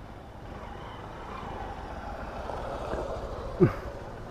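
Motorcycle engine running as a bike is ridden over a rough dirt track, growing gradually louder, with a brief falling-pitched sound near the end.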